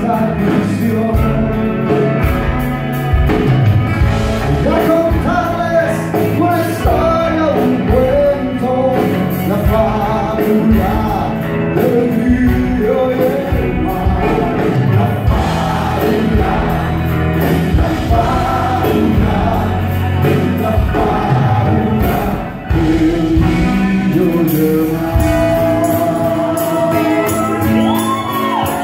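Live band playing a song with acoustic guitars, drums and keyboards, with singing over it.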